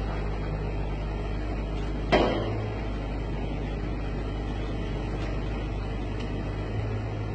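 Steady low engine rumble, with one sharp bang about two seconds in.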